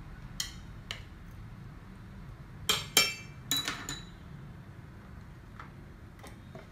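Chopsticks and a small ceramic bowl clinking against each other and the table as they are handled: a couple of light taps, then a cluster of louder, ringing clinks about three seconds in, then a few soft taps, over a low steady hum.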